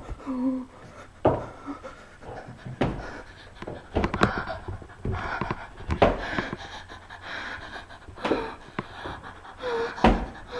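A young woman panting hard and fast in fright, her breaths broken by a few sharp thumps and bumps of movement.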